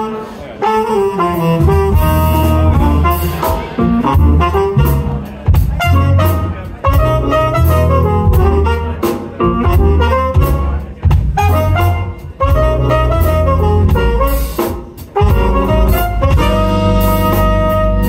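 Live jazz band: trumpet and saxophone playing a melody over electric bass, drums and keyboard.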